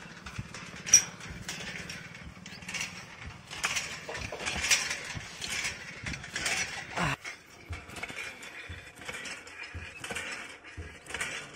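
Cast-iron lever hand pump being worked: the handle and pump head clank and rattle with each stroke, the loudest clank about a second in. The pump is so loose that it seems water may not come.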